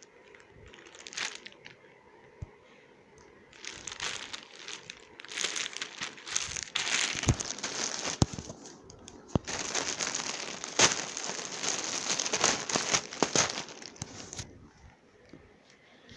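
Plastic wrapping crinkling and rustling as a plush toy is unwrapped: a short burst about a second in, then nearly unbroken crinkling with sharp crackles that stops shortly before the end.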